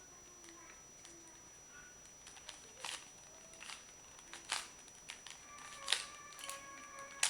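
Rubik's cube being twisted by hand: irregular plastic clicks and clacks as the layers snap round, coming closer together and louder in the second half. Faint music plays underneath, growing more noticeable in the last couple of seconds.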